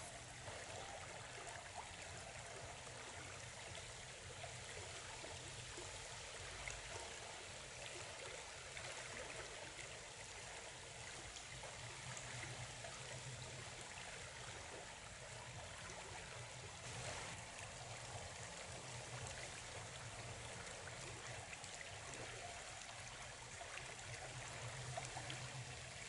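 Faint, even rushing and rippling of flowing river water.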